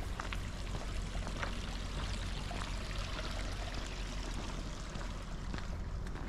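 Water running steadily, with a few faint footsteps on pavement.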